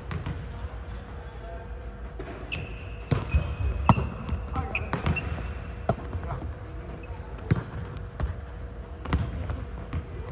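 Volleyballs hitting and bouncing on a hardwood gym floor: several irregular sharp smacks, the loudest about four seconds in, echoing in a large hall.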